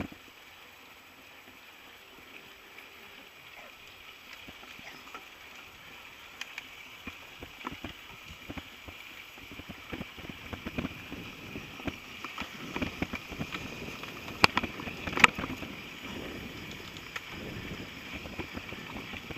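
Mountain bike rolling over a bumpy dirt trail, with scattered rattles and knocks that grow busier after about eight seconds and two sharp knocks about three-quarters of the way through.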